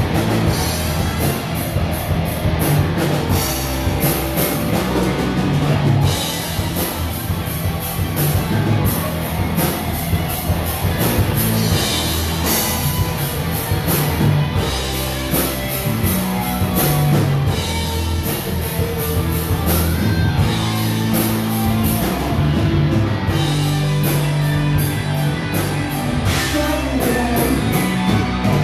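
Live rock band playing a song: electric guitars, bass and a drum kit, with a woman singing lead.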